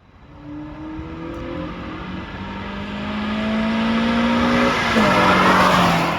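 Suzuki Swift Sport's M16A four-cylinder engine pulling under acceleration, its pitch climbing slowly, then dropping suddenly about five seconds in as the sound grows louder.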